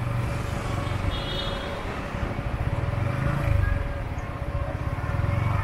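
A motorbike running on a night city ride, with a continuous, uneven low rumble of engine, road and wind noise. A brief high-pitched tone sounds about a second in.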